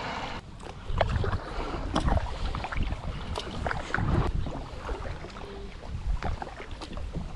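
Kayak paddle strokes through water, a splash and swish about once a second, with scattered small clicks and knocks.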